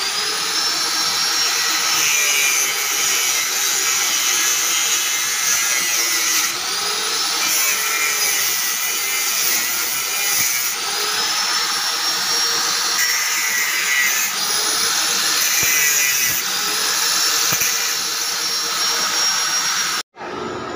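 Angle grinder cutting through a thick insulated power cable, running with a high whine that drops and climbs back several times as the disc bites. It cuts off suddenly near the end.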